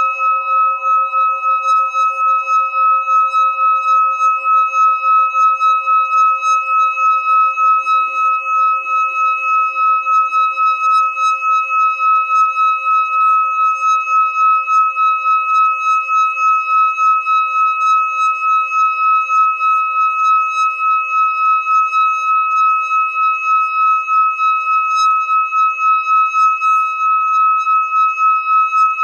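Metal singing bowl sung by circling a striker around its rim: one sustained ringing tone with several higher overtones, pulsing in an even wobble.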